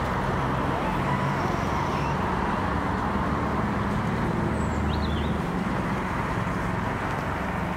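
Steady road traffic noise with a low rumble, and a short bird chirp about five seconds in.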